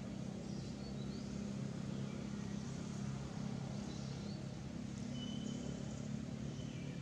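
Steady low hum of a running engine, with a few faint, short high chirps over it.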